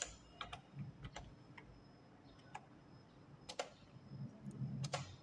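Computer keyboard keys clicking as a short word is typed: about ten separate faint keystroke clicks, spread unevenly.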